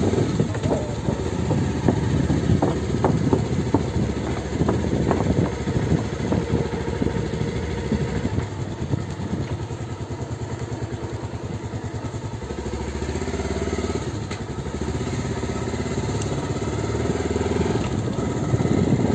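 Motorcycle engine running at low road speed, heard from on the bike. In the first several seconds there is a clatter of knocks as it rolls over the loose wooden planks of a footbridge.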